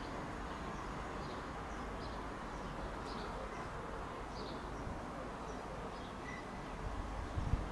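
Faint small birds chirping, short high calls every half second or so, over a steady low background rumble. A brief low bump near the end.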